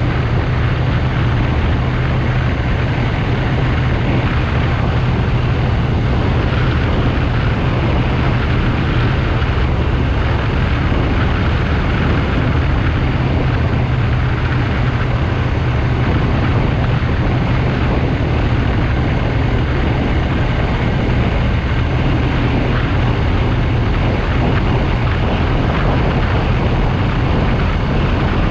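BMW R1200GS Adventure's flat-twin boxer engine running steadily while riding, heard as a low, even drone under a constant rush of wind and road noise.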